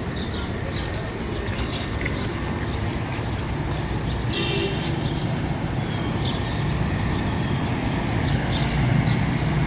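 A steady low rumble of vehicle noise that swells toward the end, with a few short high chirps about four and a half seconds in.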